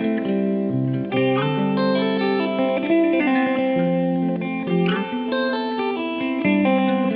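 Background music led by guitar with effects, a run of held notes that change about once a second.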